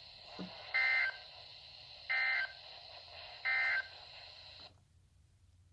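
Three short bursts of SAME digital data screeches, the NOAA Weather Radio end-of-message tones, about a second and a half apart, heard through a weather radio's speaker over a steady hiss. The hiss cuts off suddenly after the third burst as the transmission ends.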